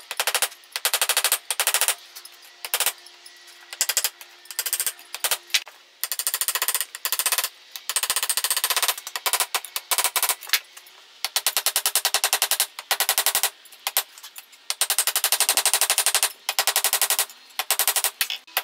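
Ball-peen hammer striking hot san mai Damascus steel on a steel block anvil, in fast runs of ringing blows, each run lasting about a second, with short pauses between. This is hand-forging a tip into the blade.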